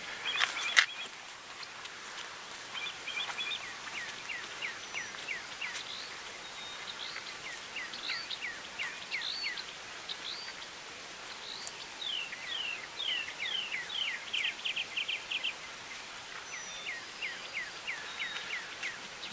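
A songbird singing repeated phrases of quick down-slurred whistled notes, several notes to a phrase, over faint steady outdoor hiss. A single sharp click about a second in is the loudest sound.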